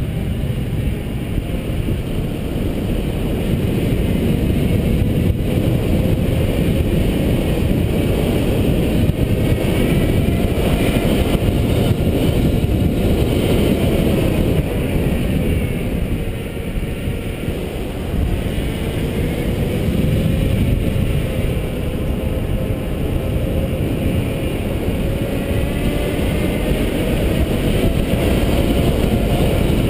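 Wind rushing over the microphone and tyre noise on asphalt as a mountain bike coasts down a paved road. Under it a faint thin whine slowly rises and falls in pitch as the speed changes.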